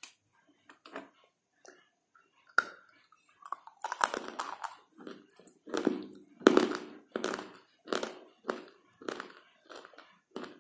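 Close-up crunching of hard slate pieces being bitten and chewed: one sharp crack about two and a half seconds in, then a run of crunches at roughly two a second.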